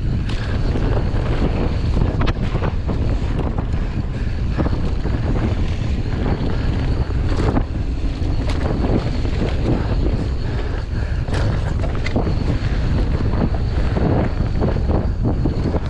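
Mountain bike descending a loose dirt trail at speed: wind buffeting the microphone over the rush of tyres on dirt, with frequent knocks and clatters as the bike rattles over bumps.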